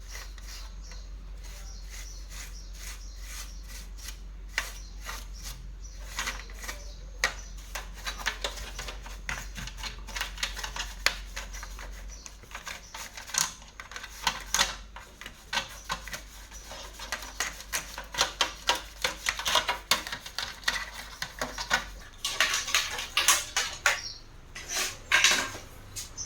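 Irregular small clicks and light clattering of hard plastic and metal parts being handled during a mixer repair, over a steady low hum that stops about 22 seconds in.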